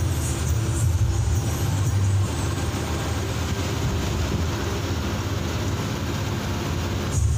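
Ashok Leyland diesel bus running at speed, heard from inside the cabin: a steady low engine rumble mixed with road and body noise.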